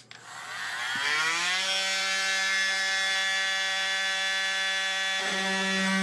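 Oscillating multi-tool switched on with a click, spinning up over about a second and a half to a steady buzzing whine, its low hum growing stronger about five seconds in.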